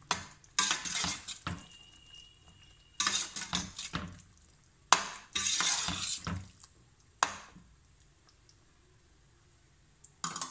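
Long metal spoon stirring peas in sauce in a stainless steel pot: uneven bursts of scraping and clinking against the pot, with a sharp clink about seven seconds in, then the stirring stops.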